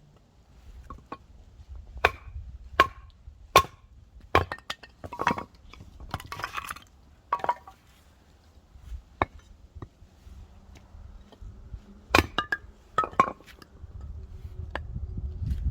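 Firewood being split and chopped: a series of sharp wooden strikes at uneven spacing, about a dozen in all.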